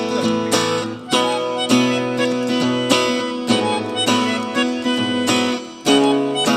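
Live band playing an instrumental passage of an upbeat pop song, led by acoustic guitar strumming chords in a steady rhythm, with a brief drop in level shortly before the end.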